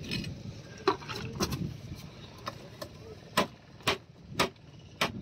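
About six sharp, separate clicks at irregular intervals, the loudest in the second half, over a faint low background rumble.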